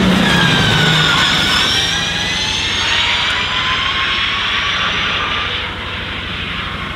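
Ford SuperVan 4 electric van accelerating hard, its electric motors giving a high whine in several pitches that slowly climbs over tyre and road noise. The sound drops away at about six seconds as the van pulls off.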